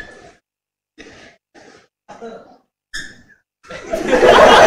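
A few short chuckles, then, near the end, a room of students laughing loudly together.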